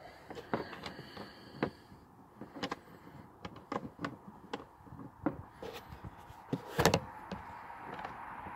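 Scattered clicks and knocks from hands connecting cables to a car power inverter, with one louder clunk about seven seconds in.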